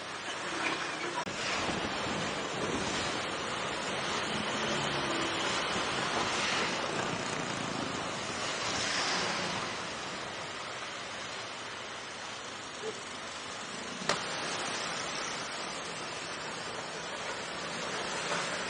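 Wind buffeting the microphone on a moving scooter: an even rushing noise with road and engine noise underneath, and a single sharp click about 14 seconds in.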